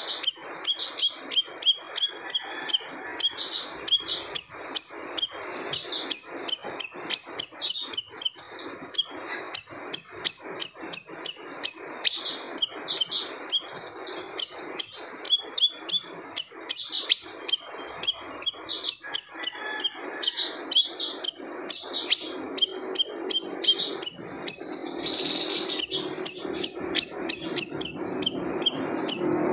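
A small songbird, the siri-siri kept by Indonesian bird-keepers, singing a long, unbroken run of rapid high chirps and trills with only brief pauses. A faint low hum joins in near the end.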